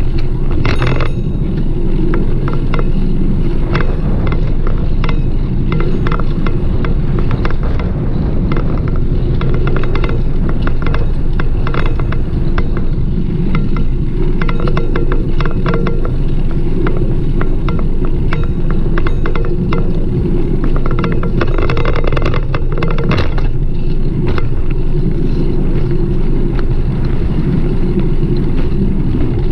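Riding a bicycle: a loud, steady low rumble of wind and road noise, with frequent short rattling clicks from the bike and the camera shaking.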